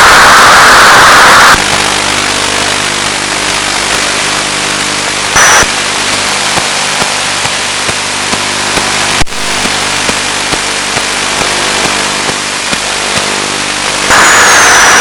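Static hiss and buzz from an analog FPV video receiver's audio channel. Loud hiss opens the stretch, then drops to a quieter hiss with a steady buzzing hum underneath. There is a brief return of loud static about five seconds in and a sharp click a little past nine seconds, and the loud hiss comes back near the end.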